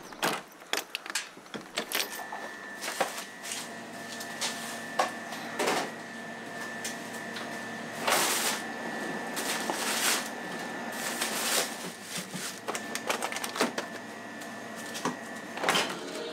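A car's tailgate shuts with a thump at the start, then a run of clattering and knocking from work in a small kitchen: steel cabinet doors and baking paper being handled. A steady high-pitched whine runs under it from about two seconds in until near the end.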